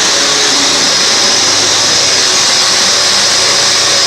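Panasonic MC-UG304 2000-watt bagged vacuum cleaner running steadily while cleaning along the edge of a carpet: a loud, even rushing noise with a thin high whine held over it.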